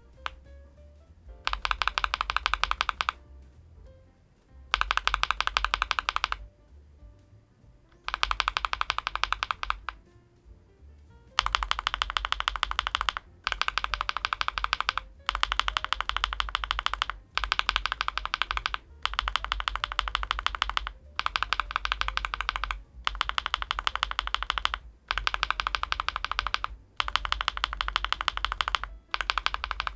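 Fast typing on the MonsGeek M2 V5 VIA, a gasket-mounted, aluminium-case mechanical keyboard: about a dozen bursts of rapid keystroke clicks, each roughly two seconds long. The pauses between bursts are longer at first and become short after about a third of the way in.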